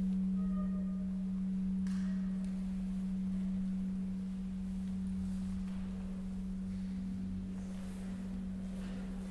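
The large bronze bell La Piagnona humming on after being struck: a deep steady tone that slowly dies away while its fainter higher tones fade, with a brief faint higher ring about two seconds in.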